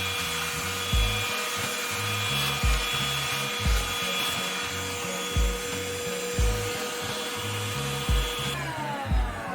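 Whall cordless handheld wet/dry vacuum running with a steady motor whine over background music with a steady beat. About eight and a half seconds in it is switched off and its whine falls away as the motor spins down.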